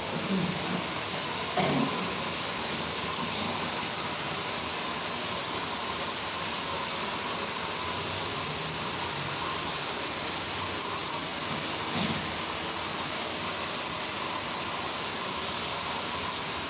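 Handheld hair dryer running steadily, blowing a constant rush of air with a faint motor whine.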